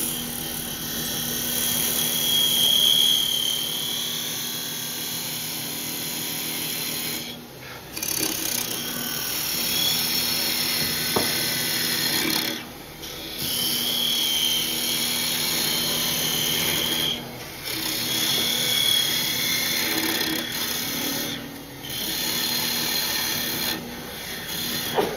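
Parting tool cutting into a wood blank spinning on a lathe, widening and deepening a recess: a steady lathe hum under the hiss of the cut, broken by four short pauses as the tool is lifted out and moved over for the next pass.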